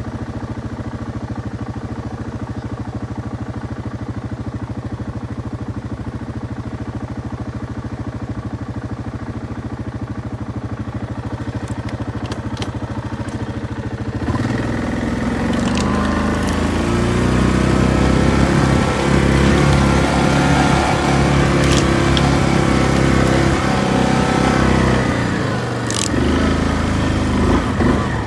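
ATV engine idling steadily, then throttled up about halfway through and running louder under load as the quad drives off, easing back near the end. A few sharp clicks and knocks sound over the engine.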